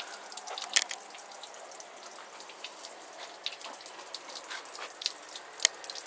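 Water running through an outboard motor's lower unit and dripping and splashing onto wet concrete: a soft steady hiss with many small irregular drips. Two sharper clicks come about a second in and near the end. The engine is not running.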